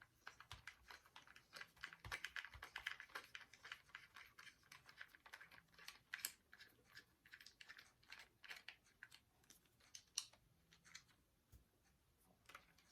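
Faint, irregular little clicks and ticks of a screwdriver turning screws out of a plastic toy blaster's shell. They come in a quick cluster early on, then thin out to scattered single clicks.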